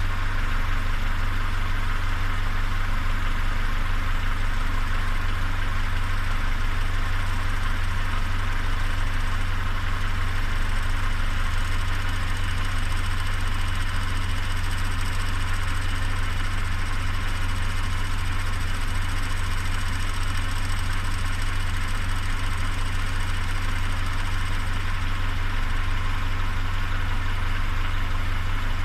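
Peugeot 407's EW10A 2.0-litre four-cylinder petrol engine idling steadily, running on with an unexplained noise the owner calls strange.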